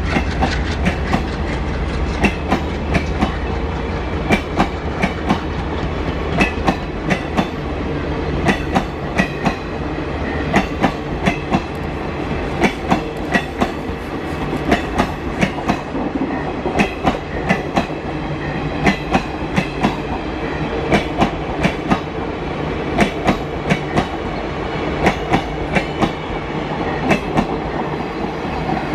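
Passenger coaches of an express train rolling past at high speed, their wheels clattering over the rail joints in quick groups of sharp clicks about once a second over a steady rolling rumble.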